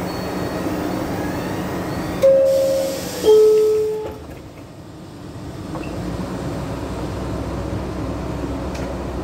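New York City subway car's door-closing chime: a higher tone, then a lower one about a second later, each ringing out, over the steady hum of a train standing in the station. After the chime the hum drops away, then a low rumble builds again.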